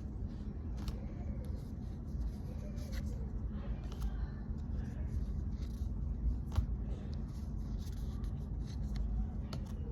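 Trading cards being handled and flipped through: light scattered clicks and rustles, with one sharper click about six and a half seconds in, over a steady low rumble.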